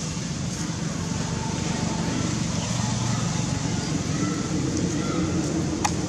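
Steady outdoor background noise: a low rumble under an even hiss, with one sharp click near the end.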